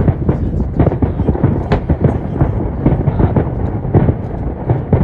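Aerial firework shells bursting in a dense, rapid barrage of booms, several a second, starting suddenly.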